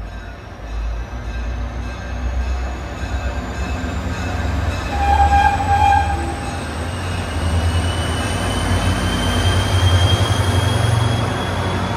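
EMD GP40-series diesel locomotive rumbling as it rolls slowly past at close range, its engine growing louder as it nears. One short, clear high tone sounds about five seconds in, and a thin high whine rises slowly in pitch through the pass.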